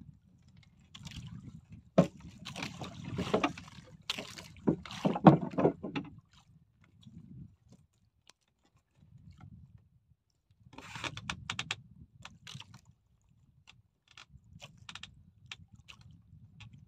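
Irregular knocks and scrapes in a small fishing boat over a low rushing background: a cluster about two seconds in, a quieter spell in the middle, and another cluster about eleven seconds in.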